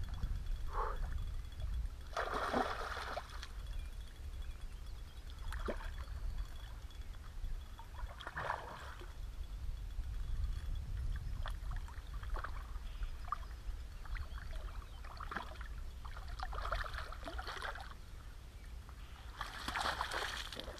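Water splashing several times as a hooked asp thrashes at the surface close to the bank, then a landing net splashing into the water near the end as the fish is scooped up. A steady low rumble runs underneath.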